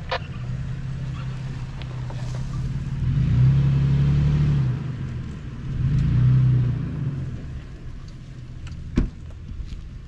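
Toyota 4Runner's V6 engine pulling the SUV slowly up out of a rutted, rocky dip, revving up twice, about three seconds in and again about six seconds in, then settling back. A single sharp knock comes near the end.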